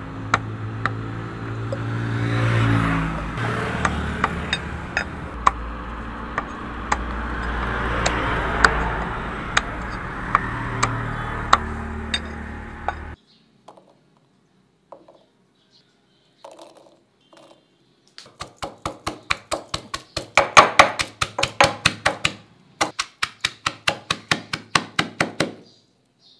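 A cleaver chopping through a rack of lamb ribs on a wooden log block, sharp chops every half second or so over a steady background rumble. After a cut, garlic and shallots drop into a stone mortar with a few knocks, then a stone pestle pounds them in two quick runs of strikes, about five a second, louder than the chopping.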